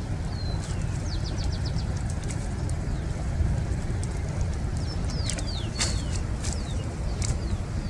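Small birds chirping and whistling, with a quick run of about six short notes about a second in and more calls near the end, over a steady low rumble.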